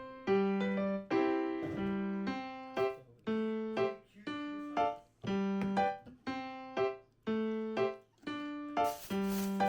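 Background music: a light keyboard melody of separate, fading notes, about one or two a second, with a rattling percussion coming in near the end.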